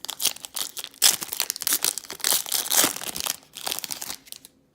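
A baseball card pack's wrapper being torn open and crinkled by hand, a dense run of crackling and tearing that stops shortly before the end.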